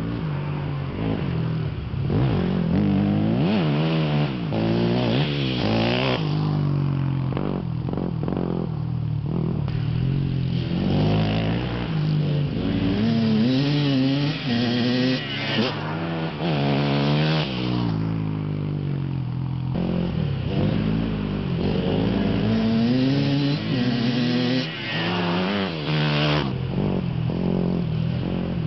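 Dirt bike engines revving, their pitch climbing and dropping over and over, over a steady low drone.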